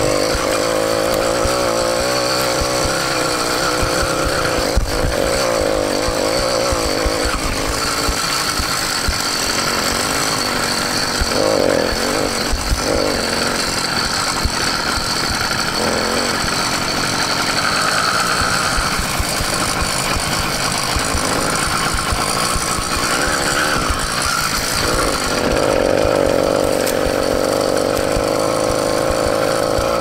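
Motorized bicycle's small gas engine running under way, its note changing now and then as the throttle is worked.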